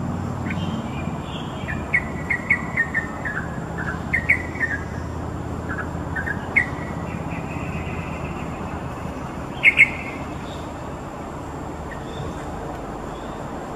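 Yellow-vented bulbul calling: quick runs of short chirps in the first few seconds, a longer held note, then a loud double note near ten seconds. A steady low rumble sits underneath throughout.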